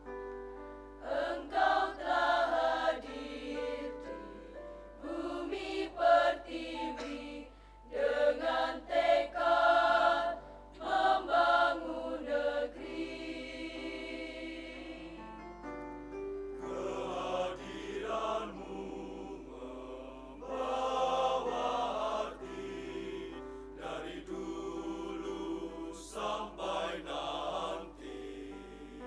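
Mixed choir of men's and women's voices singing a slow university hymn in phrases, with long held notes between them.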